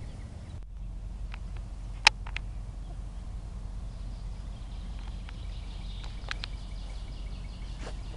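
Hens foraging in grass, with a few sharp pecking and scratching clicks, one much louder about two seconds in, over a low, steady outdoor rumble.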